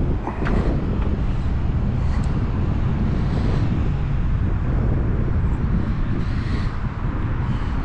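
Outdoor city ambience: a steady low rumble of wind buffeting the microphone, mixed with traffic noise.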